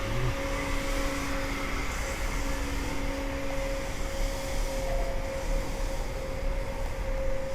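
Steady engine drone with a constant hum over a low rumble, unchanging throughout.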